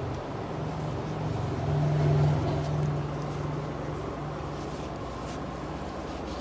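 Steady low mechanical hum that swells briefly about two seconds in.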